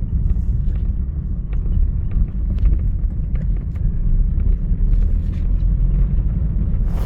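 Steady low rumble of a car driving, heard from inside the cabin, with faint small rattles and ticks over it.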